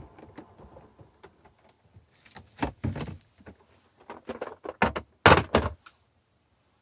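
Clear plastic storage cases of blender brushes and inks handled and set down on a desk: a series of short knocks and clatters, the loudest a couple of thuds about five seconds in.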